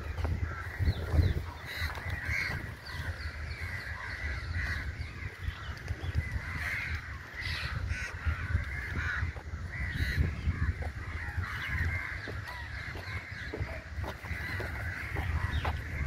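A flock of house crows cawing without pause, many harsh calls overlapping, with a low rumble underneath.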